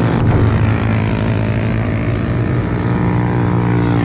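Motorcycle engines running steadily: a continuous loud hum made of several steady pitches, from the race bikes circulating on the track.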